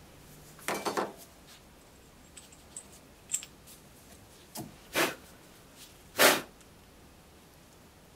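Small metal carburetor parts being handled during reassembly: light clicks and clinks, then two louder knocks around five and six seconds in.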